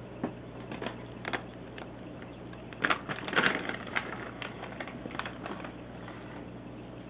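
Scattered sharp clicks and knocks, the loudest cluster about three to four seconds in, over a steady low hum. The knocks fit a handheld camera being moved and bumped about at an aquarium's glass.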